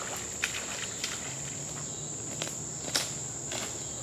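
Insects buzzing steadily, with a few footsteps sloshing through shallow water and mud; the loudest step comes about three seconds in.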